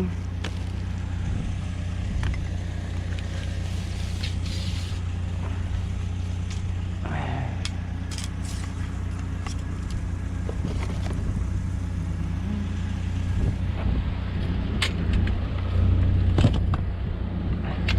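GMC Sonoma pickup driving, a steady low engine and road drone with scattered small rattles and knocks, a little louder near the end.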